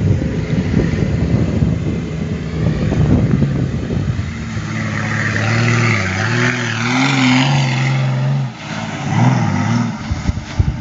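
Engine of an off-road vehicle on big tractor-style tyres running hard. From about four seconds in it settles into a steadier note that rises and falls in pitch as the throttle changes, with a brief dip at about eight and a half seconds.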